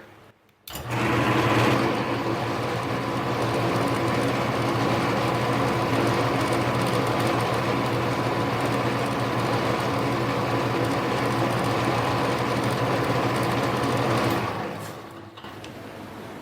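Mini lathe running in low gear with a steady motor and gear hum while reaming a small bore; it starts about a second in and shuts off near the end.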